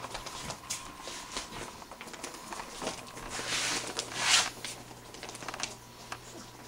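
Soft rustling and light scratching clicks, with a louder, longer rustle about three and a half to four and a half seconds in.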